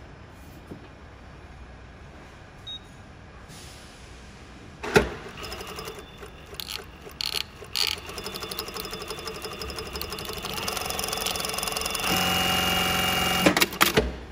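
Brother Z-8560A direct-drive zigzag industrial sewing machine stitching a zigzag seam through suede, running steadily and then faster for the last couple of seconds before stopping with a few sharp clicks. A single thump and some knocks come before the stitching starts.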